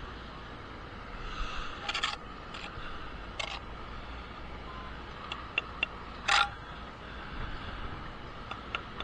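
Bricklaying work: a few short scrapes and sharp taps of a steel trowel on brick and mortar, the loudest tap about six seconds in, over a steady low outdoor rumble.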